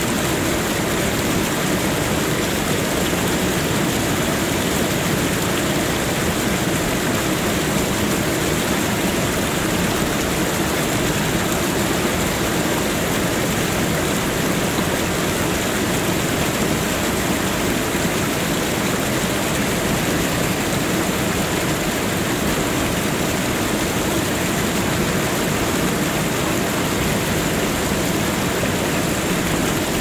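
Waterfall: a steady, unchanging rush of falling water.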